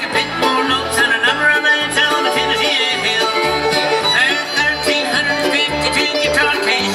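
Live bluegrass band playing: banjo, acoustic guitar, fiddle and upright bass. The bass thumps out a steady beat of about two notes a second under the picked strings and sliding fiddle.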